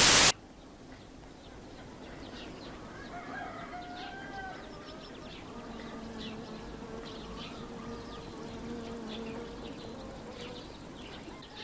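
A brief burst of loud static hiss, then outdoor village ambience: small birds chirping over a steady insect buzz.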